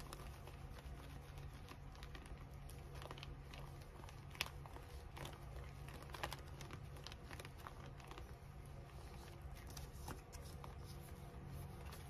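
Paper being handled: faint crinkling and rustling with scattered small clicks, and a sharper tap about four seconds in and another about six seconds in.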